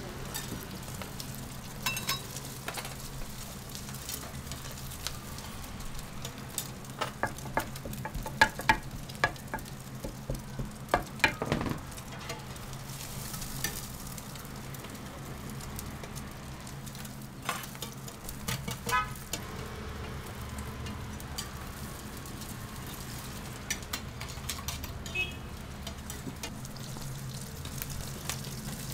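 Egg pancake batter sizzling as it fries on a hot griddle, with a run of sharp clicks and scrapes from a spatula working it, busiest around the middle. A steady hum runs underneath.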